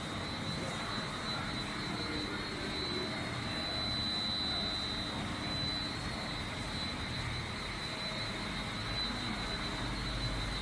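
Industrial microwave drying and sterilizing machine running: a steady whir of fans and motors with a constant high-pitched whine.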